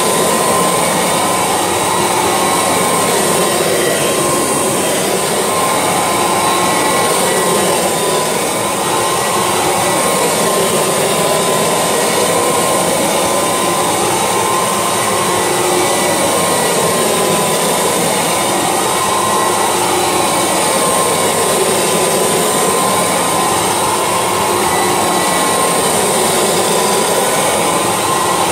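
Kirby Legend II upright vacuum cleaner running at full speed: a steady, noisy motor whine over a rush of suction. Its tone swells and dips every few seconds as it is pushed back and forth over a carpet mat.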